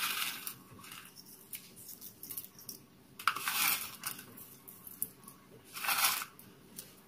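Crisp rustling of fried shallots being sprinkled onto a dish, in three short bursts: at the start, about three and a half seconds in, and about six seconds in, with a few small clicks between.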